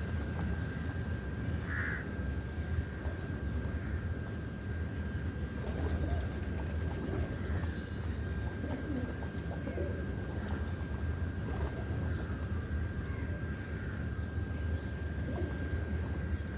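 Morning outdoor ambience: an insect chirping in an even rhythm about twice a second, over a steady high tone and a low rumble, with scattered faint bird calls.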